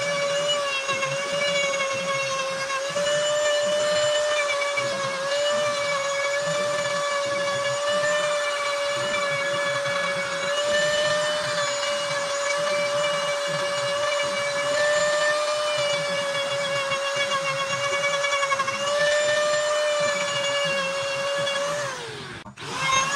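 High-speed electric power carving tool running with a steady whine while it grinds into rosewood. Near the end the pitch sags, the sound drops out for a moment, and it comes straight back at full speed.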